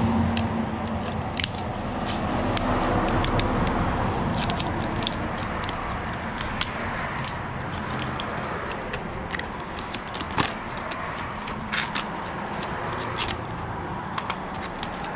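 A Master Lock lockbox being unpacked from its packaging: scattered clicks, crackles and scrapes as it is handled, over a steady background hum.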